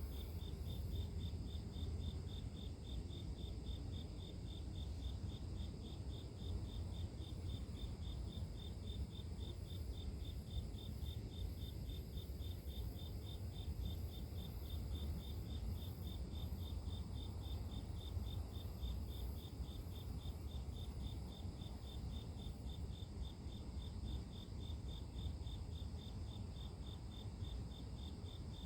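Crickets and other grass insects chirping in a steady, evenly repeating pulse, with a steady low rumble underneath.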